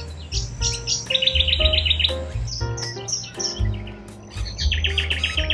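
Wild birds chirping, with two fast trills of short, high, repeated notes. Background music with a low bass line plays underneath.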